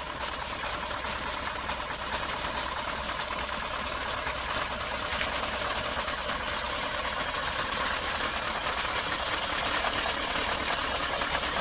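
Heavy trucks' engines running as they draw closer: a steady hiss of noise over a low hum, slowly growing louder.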